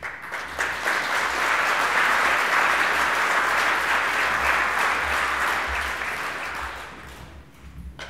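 Audience applauding, swelling over the first two seconds and dying away near the end.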